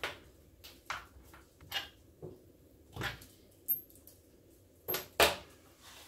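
Scattered short clicks and knocks, about seven of them, the loudest about five seconds in: the plastic housing of a Paslode IM350 framing nail gun and small hand tools being handled and set down on a towel-covered bench.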